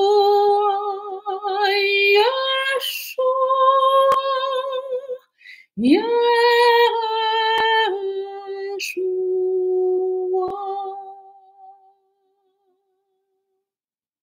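A woman singing alone, slow long-held notes with quick breaths between phrases; the voice dies away about twelve seconds in, leaving silence.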